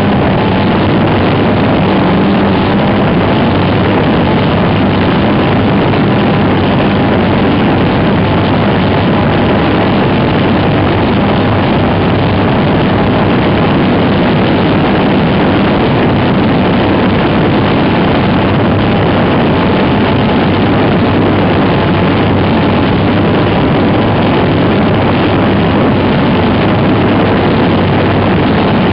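Steady, loud drone of a propeller aircraft's engine in flight, mixed with wind rush, heard from a camera mounted on the outside of the aircraft beneath its fuselage. The noise never lets up or changes pitch, with a faint low hum under it.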